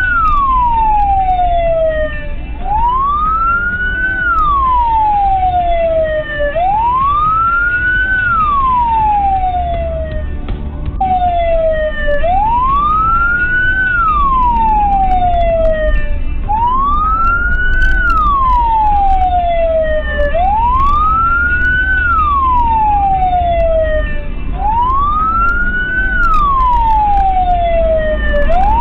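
Emergency-vehicle siren wailing. Each cycle rises to a high pitch in about a second, then slides down over about two, repeating about every four seconds. Fainter overlapping sweeps from other sirens in the convoy sound behind it over low road rumble.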